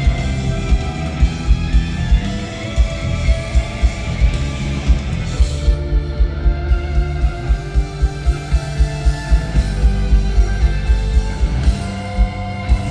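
Live rock band playing an instrumental passage: electric guitar lines over a steady kick-drum beat of about three thumps a second.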